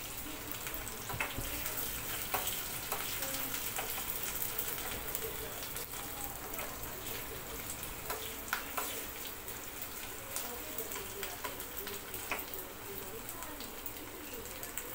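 Garlic and green chillies sizzling in hot ghee in a small pan, a tempering (tadka) being fried, with a few short clicks as a spoon stirs against the pan.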